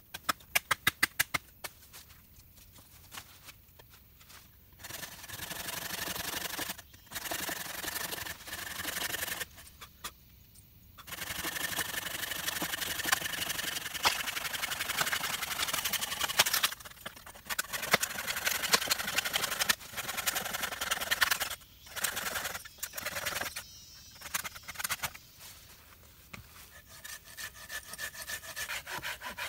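Folding hand saw cutting through a thin fallen log in runs of back-and-forth strokes with short pauses between them. A quick series of sharp clicks comes just before the sawing starts.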